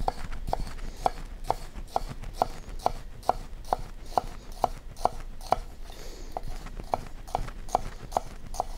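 Kitchen knife slicing an onion on a wooden cutting board: the blade knocks the board in a steady rhythm a little over twice a second, about twenty cuts, each knock with a short ring.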